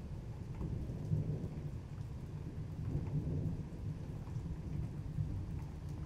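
Low, rolling rumble of distant thunder in a thunderstorm, with rain falling and scattered raindrops ticking faintly over it.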